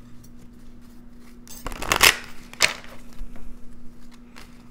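Tarot cards being handled: a short rustle of shuffled cards about two seconds in, then a single card click, with a few light taps around them. A faint steady hum runs underneath.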